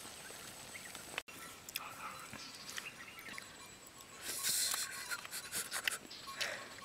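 Close-up eating sounds of a man biting into and chewing saucy pork fry held in his fingers: scattered wet mouth clicks, with a louder noisy burst about four seconds in.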